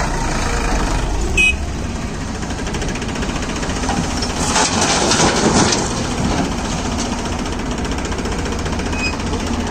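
Diesel engines of a Farmtrac tractor and a Hyundai crawler excavator running steadily, with a short knock about a second and a half in. About halfway through, a bucketful of soil drops from the excavator bucket into the steel tractor trolley with a rush of noise lasting about a second and a half.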